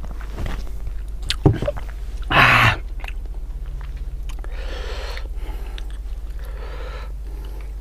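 Close-miked eating sounds: chewing and mouth clicks, a loud breathy burst about two and a half seconds in, then two soft wet tearing sounds as fingers pull apart sauce-covered chicken. A steady low hum runs underneath.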